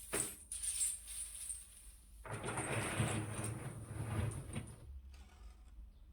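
Ceramic pieces of an interactive sculpture clicking against each other, then a rushing, rattling swish of about two and a half seconds that fades out, a sea-like sound.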